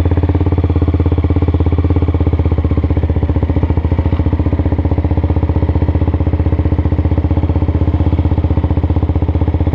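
Honda CBX 250's single-cylinder four-stroke engine running steadily at low revs, an even, rapid putter that holds the same pitch throughout.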